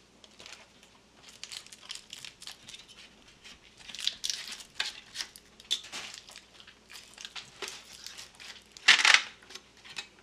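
Plastic packaging crinkling and small plastic clicks and knocks as the fish finder's mount is unwrapped and handled, in irregular bursts, with a louder rustle about nine seconds in.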